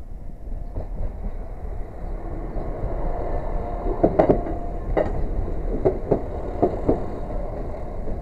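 Two-car passenger train passing close by at a level crossing. The rumble of the train builds, then its wheels clack over the rail joints in quick pairs, about once a second from about four seconds in.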